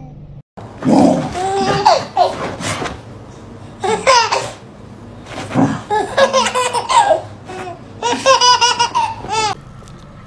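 A toddler laughing hard in about four bouts of quick, pulsing laughter, with short pauses between them.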